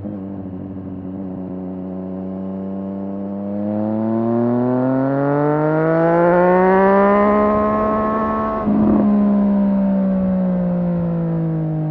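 Triumph Street Triple 765 R's inline three-cylinder engine pulling up through the revs, its note climbing steadily for a few seconds. About two-thirds of the way in there is a short rough burst, and then the note slowly falls away.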